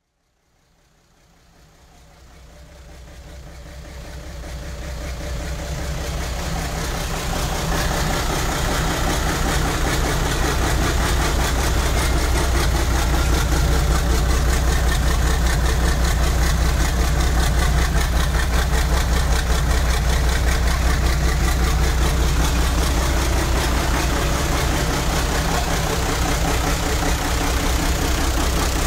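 Perkins T6.354 six-cylinder marine turbodiesel running steadily on its first test run after a complete overhaul, with cooling water splashing out of the wet exhaust elbow. The sound fades in over the first several seconds, then holds steady.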